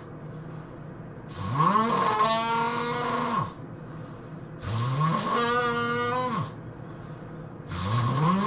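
A person's loud, drawn-out snoring: three long, pitched snores about three seconds apart, each rising in pitch at its start and then holding steady.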